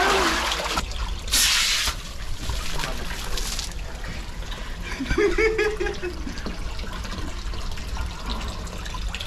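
Water running and trickling into a small concrete pool as it fills from a pipe, with a short loud burst of splashing about a second and a half in. A person's voice calls out briefly around five seconds in.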